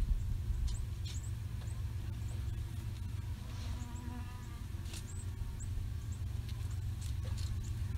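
Short, high, downward-slurred chip calls from small songbirds, a dozen or so scattered through, over a steady low hum.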